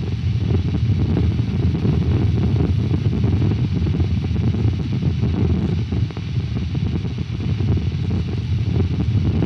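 A loud, steady low rumbling noise, with almost nothing in the higher range.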